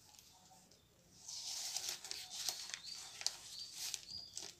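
Clear plastic file crinkling and rustling as glitter paper sheets are slid into it, starting about a second in, with three short high squeaks near the end.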